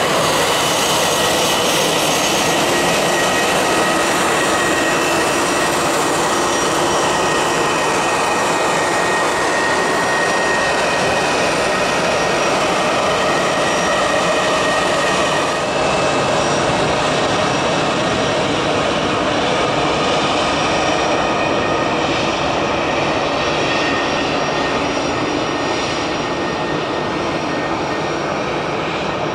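Twin rear-mounted turbofan engines of a Bombardier Global business jet on its landing roll. The jet noise is loud and steady, with a thin high whine that slowly drifts lower and eases slightly near the end as the jet slows.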